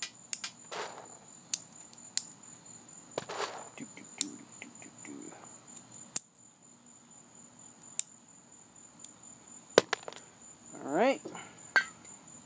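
Scattered sharp clicks and knocks of a gas-blowback airsoft pistol and its magazine being handled during a magazine swap, over a steady high cricket chirp. A short rising squeak comes near the end.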